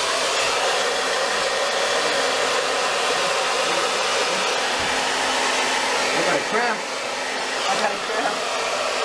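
Handheld hair dryer blowing steadily at close range while hair is blow-dried over a round brush.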